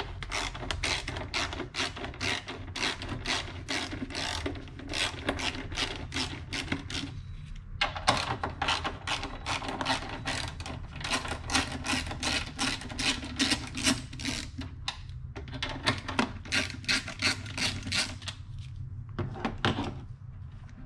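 Socket ratchet clicking rapidly as the 10 mm bolts holding the air intake snorkel are unscrewed. The clicks run in long runs, broken by short pauses about seven seconds in and again near the end.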